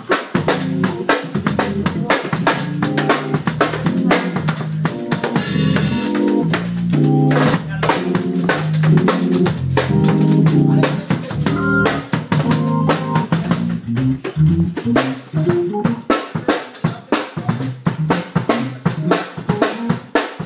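A drum kit plays a steady groove with snare and bass drum, and an organ plays along in held chords. The organ chords are loudest through the middle, and the drumming grows busier toward the end.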